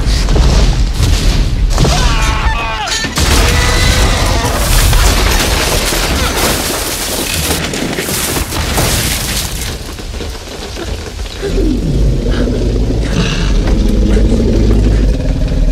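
Film soundtrack of a wooden restroom hut being smashed apart by a Tyrannosaurus rex: repeated heavy booms and crashing, splintering debris over rain, loud throughout.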